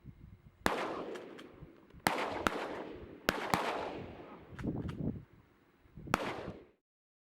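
Shotgun shots fired in quick succession during a duck hunt, about half a dozen reports, each followed by a rolling echo. The sound cuts out abruptly shortly before the end.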